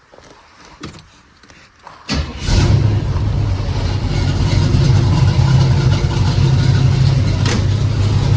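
Cammed small-block Chevy V8 cranks and fires about two seconds in, then runs steadily at idle. Its exhaust is leaking badly at the new headers' gaskets on both sides.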